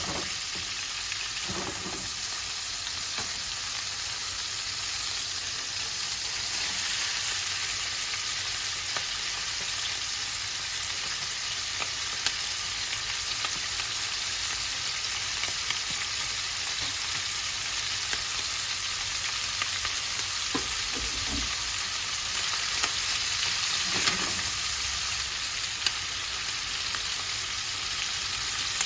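Food sizzling steadily as it fries in a pan, with scattered clicks and a few soft knocks from a utensil stirring it.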